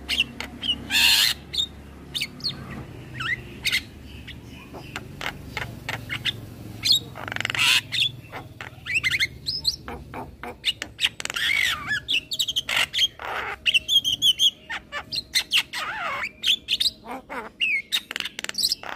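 Young male Javan myna calling busily: a fast, varied string of bending whistles, harsh squawks and quick runs of clicking chatter.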